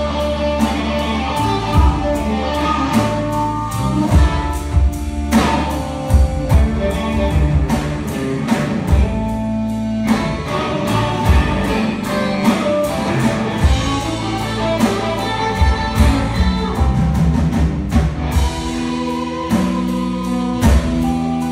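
A live blues-rock band playing, led by electric guitar over a steady drum beat.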